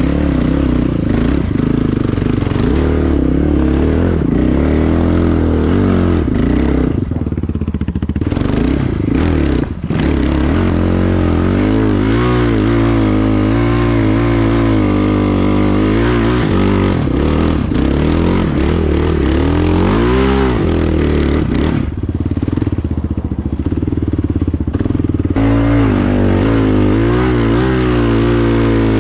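Yamaha Raptor 660 quad's single-cylinder four-stroke engine under way, the revs rising and falling with the throttle, with brief let-offs about seven and ten seconds in.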